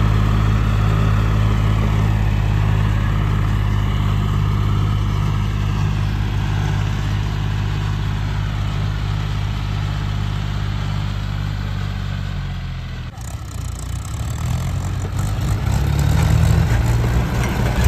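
Diesel tractor engine running steadily. About thirteen seconds in, the sound breaks off and turns into a rougher, uneven engine sound that grows louder.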